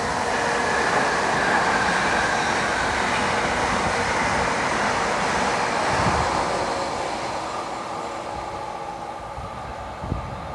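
Container freight train's wagons rolling past on the rails, a steady noise of wheels on track that fades from about six seconds in as the last wagons go by.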